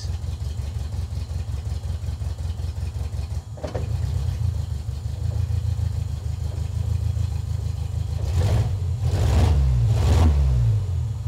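Engine of an engine-swapped 1979 Toyota Corolla idling roughly on a new standalone ECU base tune, with an ignition setting just changed to find a smoother idle. It stumbles about three and a half seconds in, and near the end the revs rise and fall briefly with a few sharp noises.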